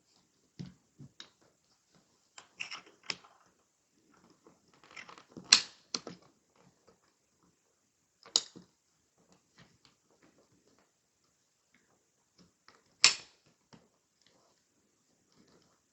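Scattered small metal clicks and taps of trigger parts and pins being handled in an AR-style rifle lower receiver while a Geissele SD-E trigger is fitted. The sharpest clicks come about five and a half seconds in, again near eight and a half seconds, and near thirteen seconds.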